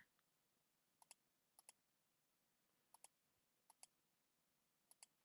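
Faint computer mouse clicks: five quick double ticks, each a button press and release, spaced roughly a second apart, as shapes are drawn with the pen tool.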